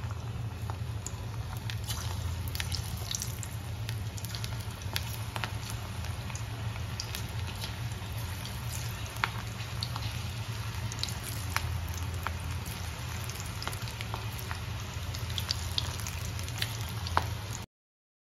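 Gram-flour-battered green chili rings deep-frying in hot oil: steady sizzling and bubbling with scattered sharp pops and crackles over a steady low hum. It stops abruptly just before the end.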